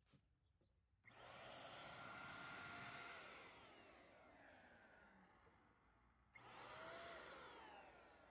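Electric HomeRight paint sprayer running in two bursts with a hiss, about a second in and again toward the end. Each time it starts abruptly, then its motor whine sinks in pitch as it fades.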